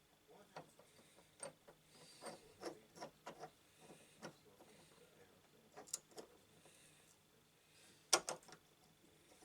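Irregular small clicks and taps of metal hand tools being handled and fitted, with a louder sharp double click about eight seconds in.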